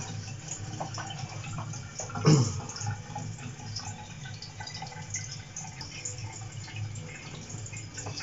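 A damp cloth wiping and rubbing pieces of king bolete (porcini) mushroom, a soft wet rubbing with small handling clicks and one louder knock a little over two seconds in. A steady low hum runs underneath.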